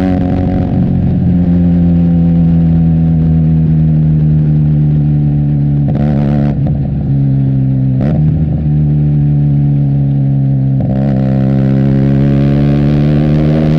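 Benelli TNT 300's parallel-twin engine through an Austin Racing aftermarket exhaust, running under way with the pitch slowly easing. The note breaks briefly twice, about six and eight seconds in, then climbs as the bike accelerates near the end.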